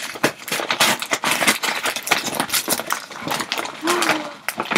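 Plastic mailing bag being pulled open and handled: dense, irregular crinkling and rustling of the plastic, with a brief vocal sound about four seconds in.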